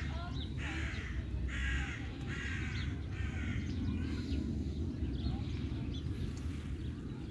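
A bird gives five harsh calls, about one a second, then stops; a steady low rumble runs underneath.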